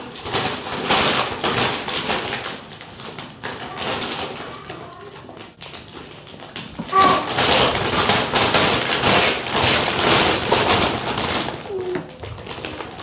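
Popcorn being chewed right next to the microphone: rapid, noisy crunching in two long spells.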